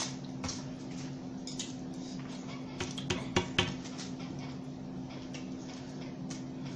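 Light clicks and taps of chopsticks and utensils against bowls and dishes at a meal, clustered about three seconds in, over a steady low hum.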